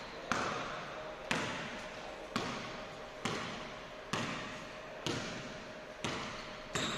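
A basketball being dribbled on a wooden sports-hall floor, about one bounce a second, each bounce echoing in the large hall.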